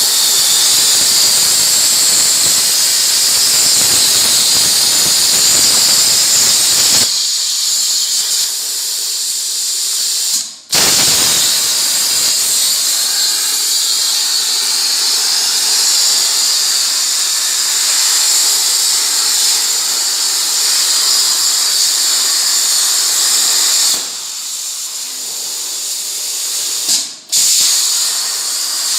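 Plasma torch of a CNC plasma cutting machine cutting sheet metal: a loud, steady hiss with a high edge. The arc cuts out briefly about ten seconds in and again near the end, then restarts.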